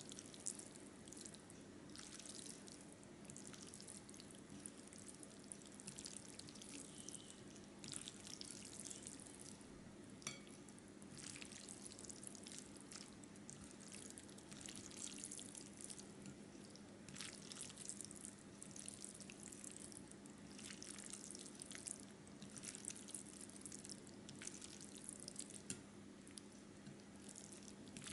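Chopsticks stirring saucy instant dan dan noodles in a bowl: faint, irregular wet clicks and sticky slurping noises as the sauce is mixed through, over a low steady hum.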